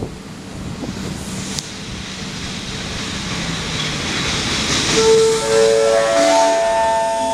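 Passenger train slowing to a stop: low running rumble and a building hiss, then from about five seconds in, brake squeal in several steady high tones at different pitches.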